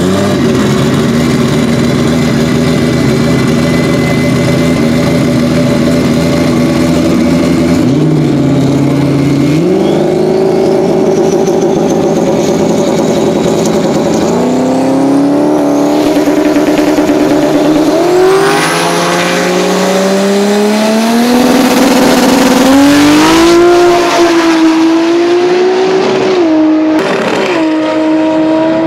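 Turbocharged Toyota Supra straight-six in a drag-racing pickup truck, running at a steady idle, then revved up in steps and launched, the engine note climbing and dropping back at each of about three gear changes as it pulls away down the strip.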